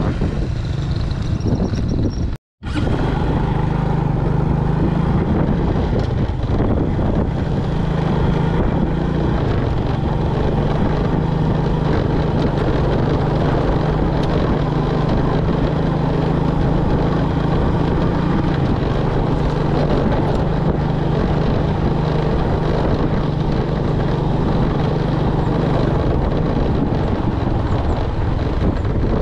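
A vehicle engine running steadily under a rush of wind noise, cutting out completely for a moment about two and a half seconds in.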